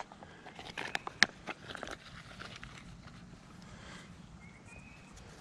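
Fingers rubbing and picking dirt off a freshly dug button: a run of small scratches and clicks in the first two seconds, then faint rustling.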